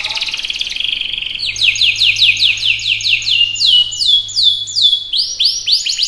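Domestic canary singing: a fast trill, then from about a second and a half in a run of repeated falling whistles, about six a second, switching to a new rolled phrase near the end.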